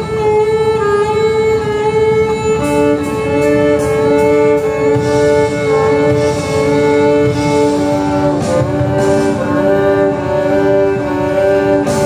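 Violin playing a slow melody of long held notes, with lower accompaniment underneath.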